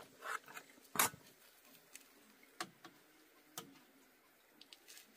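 A series of short, sharp knocks and clicks at irregular intervals, the loudest about a second in.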